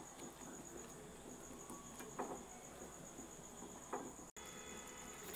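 Wooden spatula stirring thick chickpea gravy in a pan, faint, with two soft scrapes about two and four seconds in. A steady faint high-pitched whine runs underneath.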